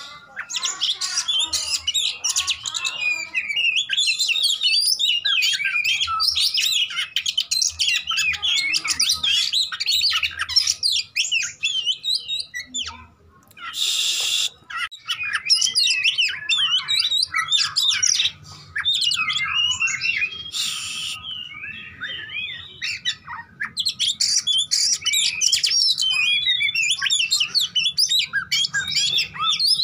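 Oriental magpie-robin singing loudly in a fast, unbroken run of varied whistles, trills and chattering notes. Twice, about midway, the song is broken by a short, harsh rasping burst.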